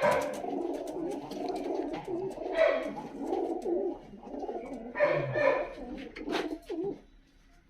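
Domestic pigeons cooing in a continuous low warble, with a few brief noisy scuffles among the calls; the cooing stops about seven seconds in.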